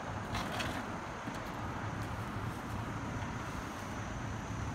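Steady traffic noise from cars passing on a busy road, with wind on the microphone and a brief hiss about half a second in.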